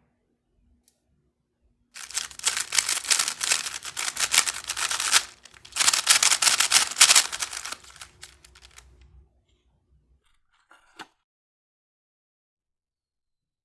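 Packaging being torn and crinkled open by hand, in two loud spells of crackling a few seconds each, then a single click.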